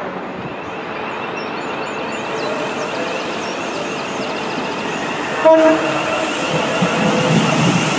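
Thameslink Class 700 electric multiple unit running toward the listener with a steady high whine and wheel noise that grows louder near the end. One short, loud horn blast sounds about five and a half seconds in.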